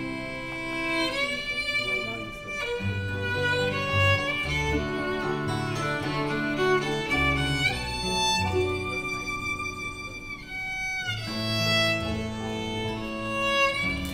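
Live string band playing a tune: a fiddle carries the melody in long, sliding bowed notes over strummed acoustic guitar and banjo and a plucked bass line.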